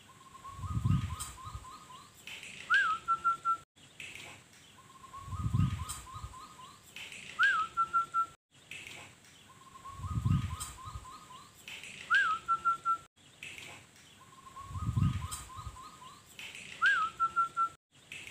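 Zebra dove (perkutut) singing: the same cooing phrase four times, about every four and a half seconds, each a run of soft notes followed by a higher note and a quick trill. A low rumble comes just before each phrase.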